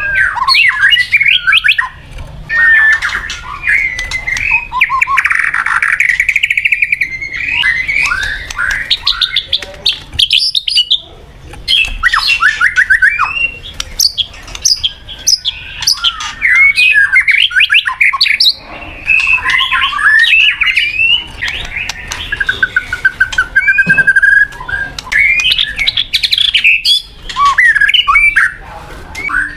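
White-rumped shama singing: a loud, varied run of whistles, glides and rapid trills in phrases a second or two long, broken by short pauses.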